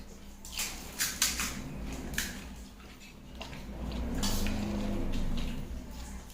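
Pani puri (fuchka) being eaten: several sharp crunches and clicks, with dishes and cutlery clinking, then softer low chewing sounds.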